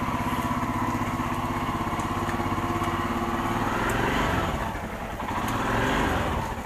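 Royal Enfield Himalayan single-cylinder engine idling with an even, rapid beat, warming up after a cold start.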